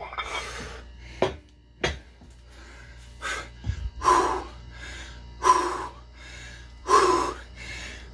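A man breathing hard through a set of weight-plate raises, with short forceful exhalations and grunts about every one and a half seconds. A low steady hum runs underneath.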